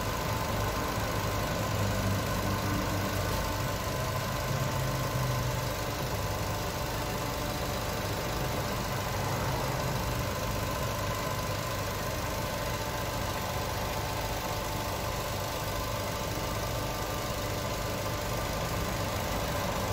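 A machine running steadily: an even drone with a low hum and several steady higher tones.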